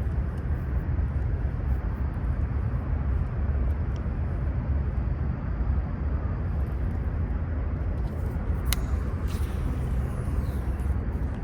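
A steady low outdoor rumble, with a short sharp click about three-quarters of the way through.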